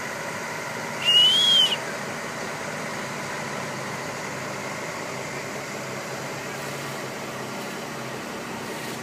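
A mobile crane's engine runs steadily with an even hum while it lifts. About a second in there is one short, loud, high whistle that rises and then falls.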